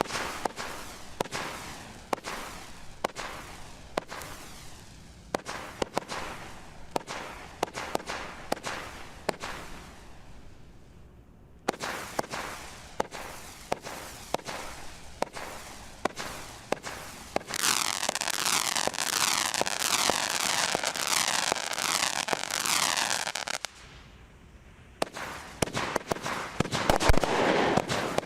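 A 72-shot firework battery (NICO Revolution) firing shot after shot, about two a second, each launch followed by the crackling burst of a crackling chrysanthemum. About two-thirds through comes a stretch of dense, continuous crackling, then a short lull and a faster, louder volley near the end.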